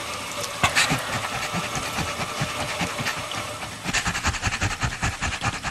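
Small fluffy white dog panting rapidly, a hissing breath that settles into quick, even pants about four seconds in.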